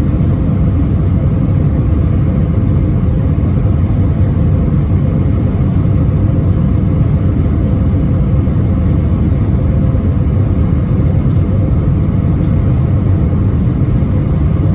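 Steady low rumbling cabin noise inside an Airbus A320-231 with IAE V2500 engines, with a few faint steady tones over the roar.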